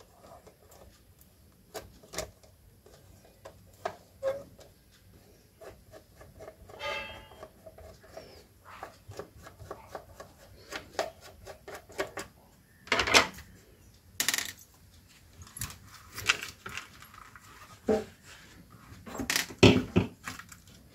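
Screwdriver undoing screws inside a plastic-cased voltage stabilizer, making scattered small clicks, scrapes and taps of metal on plastic, with a short rasping run about a third of the way in. Several louder knocks come in the second half as the case and circuit board are handled.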